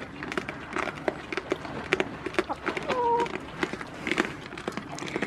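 Goats jostling and feeding at close range, giving many irregular clicks and taps, with one short animal call about three seconds in.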